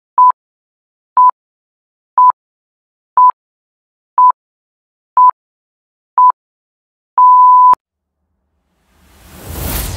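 Electronic beep tones in a countdown pattern: seven short beeps of one pitch, a second apart, then a longer final beep about seven seconds in that cuts off with a click. A rush of noise swells near the end, like a whoosh sound effect.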